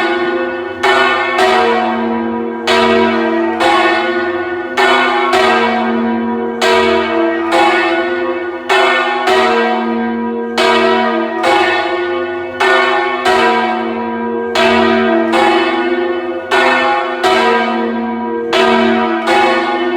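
Several church bells ringing loudly in quick, uneven succession, a strike every half second to a second, each one still ringing as the next is struck.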